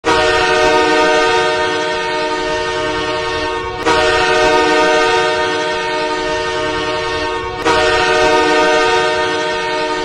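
Los Angeles Kings goal horn, signalling a goal: a loud horn chord of several tones held in three long blasts of nearly four seconds each, each blast starting again sharply.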